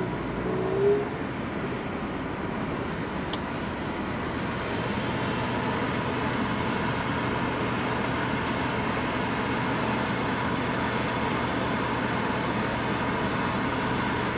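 Steady in-cabin hum of a car waiting in a line, with the engine idling and the air conditioning blowing.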